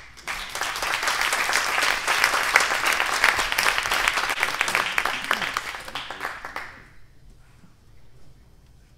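Audience applauding: a burst of clapping that starts right away, holds steady for several seconds, then thins out and dies away about seven seconds in.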